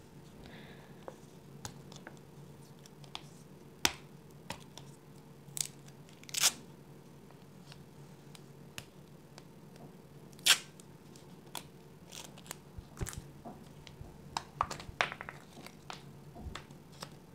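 Plastic gachapon capsule being twisted and pried open by hand, then its small plastic-wrapped contents handled: scattered clicks, snaps and crinkles, the sharpest snap about ten seconds in.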